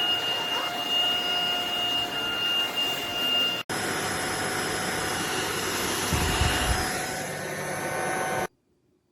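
Cordless stick vacuum's motor running with a steady high whine over a rushing hiss. There is an abrupt change to a higher-pitched whine partway through, and the sound cuts off sharply near the end.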